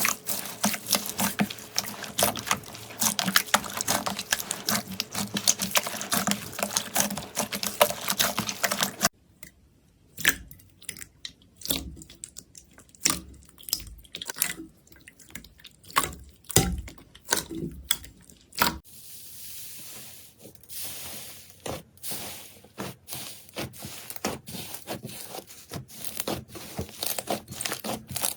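Slime being squeezed and pressed by hand: dense crackling and popping at first, then sparser wet squishes and pops after a cut about nine seconds in, then crisp clicking again from about nineteen seconds.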